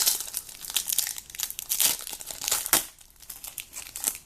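Trading-card packaging crinkling and crackling as it is handled and opened, in irregular bursts that thin out about three seconds in.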